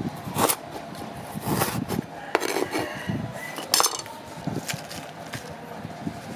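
Kitchen prep knocks and clinks: a cleaver striking a wooden cutting board as it chops ginger, and sliced aromatics and leaves set onto a ceramic plate. A handful of sharp hits come at uneven intervals.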